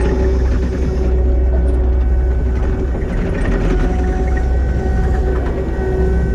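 Diesel engine of a skid steer loader running steadily at working speed with a deep hum.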